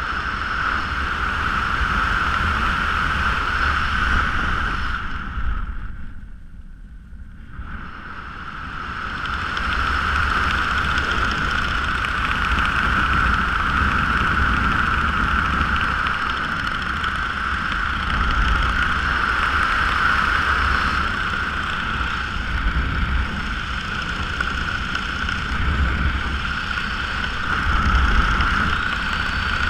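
Wind rushing over a camera microphone during flight under an open parachute canopy: a steady rush with a whistle-like tone running through it. It dips quieter for a couple of seconds about six seconds in, then comes back.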